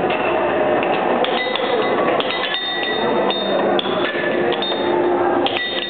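Air hockey being played: the puck and plastic mallets clack against each other and the table's rails several times, some hits followed by a short high ringing, over the steady hiss of the table's air blower.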